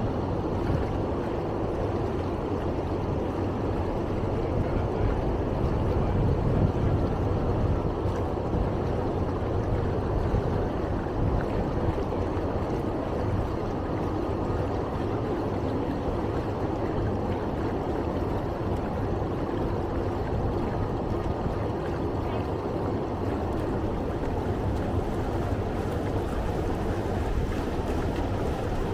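River tour boat's engine running steadily, with the wash of water along the hull.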